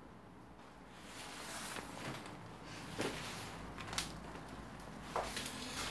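Faint footsteps and shuffling on a rubble-strewn floor, with a few light knocks about three, four and five seconds in.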